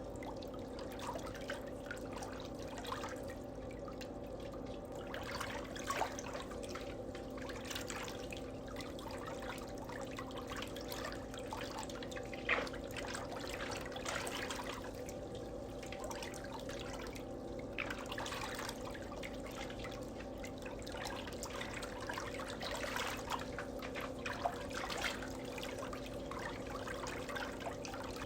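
Water dripping and trickling with small irregular splashes, over a steady low hum.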